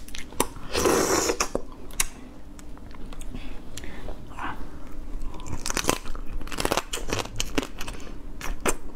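Eating soy-marinated raw crab up close: wet cracks and squelches as the crab body is pulled apart, with a louder burst about a second in. Near the end come crunching bites and chewing on a shell-on piece.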